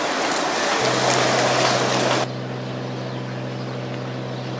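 Wind noise on the microphone that cuts off suddenly about two seconds in. It leaves a steady low hum from the docked ferry's engines.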